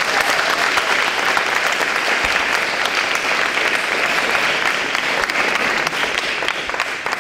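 Audience applauding: a steady, dense clapping that tapers off near the end.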